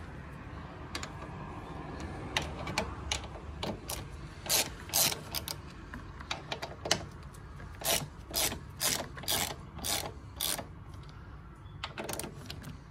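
Hand socket ratchet clicking in short, irregular runs as the nuts holding a camber plate on the strut top are loosened.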